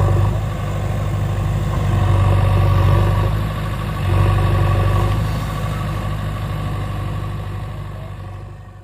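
Earthmoving machine's diesel engine running, a steady low hum that swells about two seconds in and again about four seconds in, then fades away near the end.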